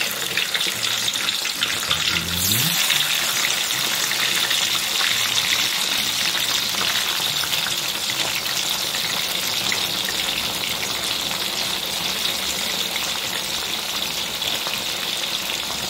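Brine-soaked breadfruit sticks deep-frying in hot oil in a steel wok, just put in: a steady, dense sizzle as the water from the salt-water soak boils off in heavy foam.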